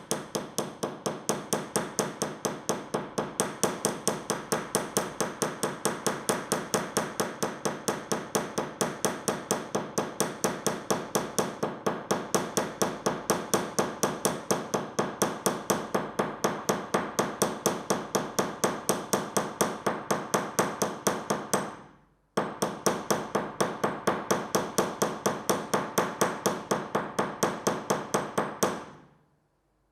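Planishing hammer striking wire solder on a steel bench block to flatten it: fast, steady metallic taps, about four a second. There is a short break about two-thirds through, and the taps stop near the end.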